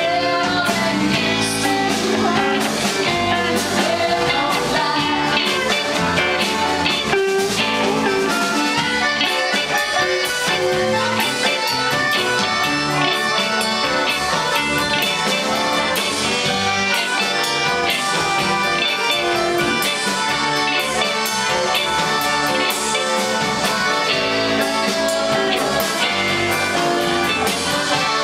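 Live blues band playing: accordion, electric guitars, electric bass and drum kit together at a steady, full level.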